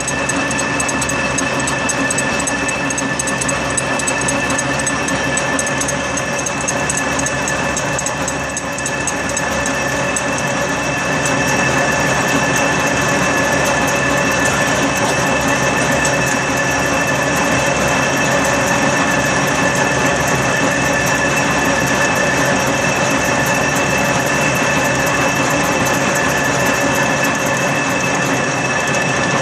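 Keyseat milling attachment running under power, its cutter milling an internal keyway in a blind bore of mild steel in one pass: a steady machining noise with a high whine running through it, slightly louder from about a third of the way in.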